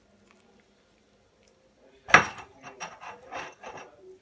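Dishes and cutlery clattering in a kitchen: one sharp clink about two seconds in, followed by several lighter knocks.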